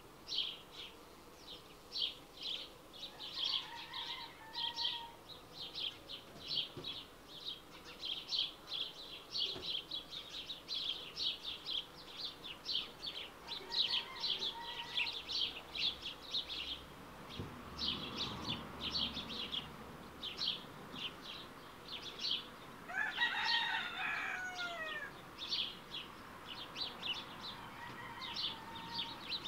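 Week-old smew ducklings peeping: a steady stream of short, high-pitched peeps, two or three a second. About two-thirds of the way through, a lower call slides down in pitch.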